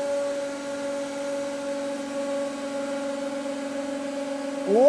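Hydraulic press running with a steady, even hum while the ram retracts upward, lifting the pressing tool off crushed steel screws.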